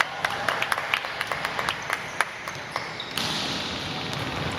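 Basketball game play on an indoor court: a run of short, sharp taps and squeaks, irregular and thinning out after about three seconds, over a steady murmur of the hall.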